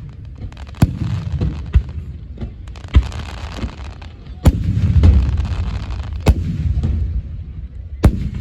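Fireworks display: aerial shells bursting in about five sharp bangs, each followed by a low rumble, with further rumbling bursts between them.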